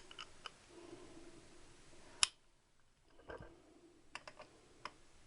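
Scattered faint metallic clicks and taps of a 7/8 AF socket and wrench being fitted onto the clutch centre nut, with one sharp, louder click about two seconds in.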